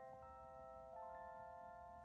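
Faint, soft background music of sustained bell-like mallet tones, a few notes held together and changing twice.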